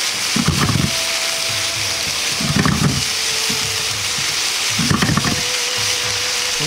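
Shredded cabbage, carrot and komatsuna stir-frying in a non-stick frying pan with a steady sizzle. Three times, about two seconds apart, the vegetables rustle as chopsticks turn them over.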